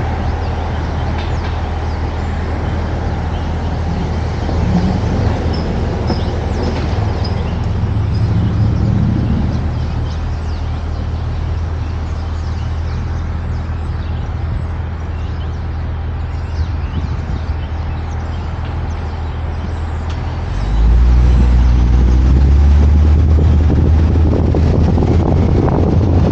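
A car driving in city traffic, with a steady low engine and road rumble. About twenty seconds in, it grows louder and deeper.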